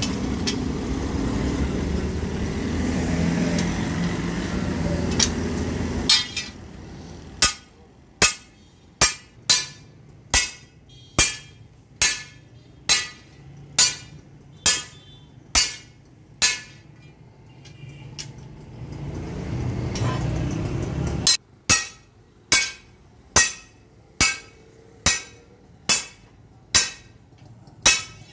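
Sledgehammer blows on a steel spring leaf resting on an anvil block, ringing metallic strikes at a steady pace of a little more than one a second. There are two runs of about a dozen blows each, with a pause between them. A steady engine rumble fills the first six seconds and the pause.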